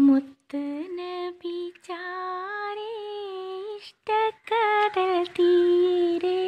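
A woman singing a Malayalam madh song, a devotional song in praise of the Prophet Muhammad, unaccompanied. She holds long notes with small melodic turns, and the phrases are broken by short pauses.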